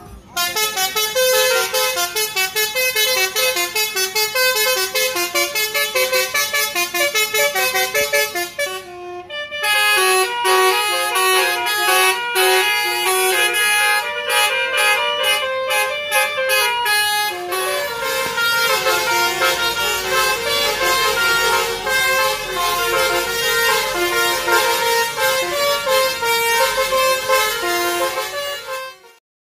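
Basuri musical bus horn playing a fast melody of stepping notes, with a short break about nine seconds in; it cuts off abruptly near the end.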